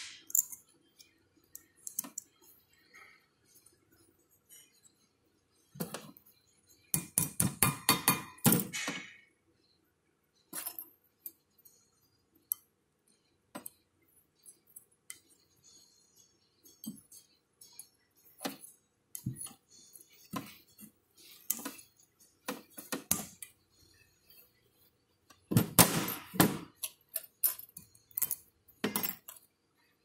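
Small steel brake pad hardware clips clinking and rattling against each other and against the cast brake caliper mount as they are handled and fitted: scattered sharp metal clicks, with two longer spells of quick rattling clicks.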